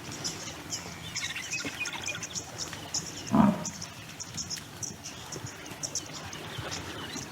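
Birds chirping, short high chirps repeating throughout with some twittering early on, and one louder, lower sound about halfway through.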